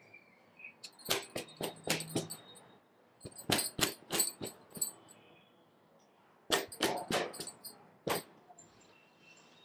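Kurti fabric rustling and swishing as hands bunch and pull it apart, in three short flurries of crisp rustles with quiet gaps between.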